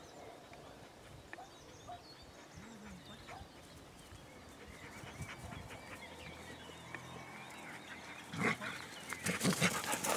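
Quiet open-air ambience with faint bird chirps. Near the end a dog runs up close, and its breathing and movement in the grass come in as short louder noises.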